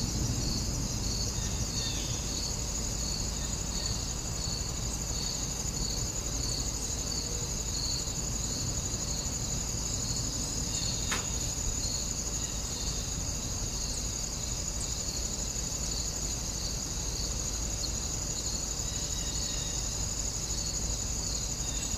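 Insects chirping in the grass: a steady high trill with a second insect pulsing about twice a second, over a low steady background rumble. There is a single faint click about halfway through.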